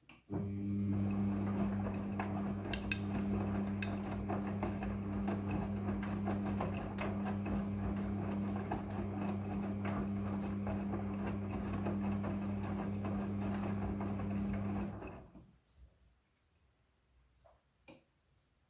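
Midea front-loading washing machine turning its drum: a steady motor hum with continuous small rattling and clicking, which stops fairly suddenly after about fifteen seconds, followed by a few faint clicks.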